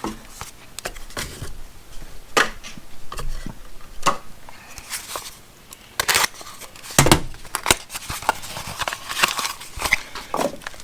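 Small aluminum camera slide buckles being handled and set down on a table: scattered sharp clicks and knocks of light metal parts, the loudest about seven seconds in, with some rustling of packaging near the end.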